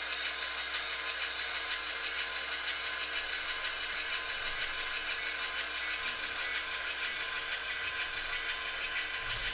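Sound-decoder recording of a diesel locomotive engine, played through an HO-scale model locomotive's small onboard speaker. It runs steadily while the locomotive moves a cut of freight cars.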